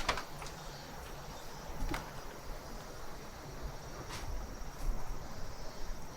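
Footsteps on old, loose wooden floorboards, which clunk and knock unevenly a few times as they are walked on.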